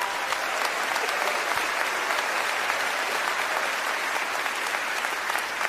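Audience applauding steadily in response to a joke's punchline.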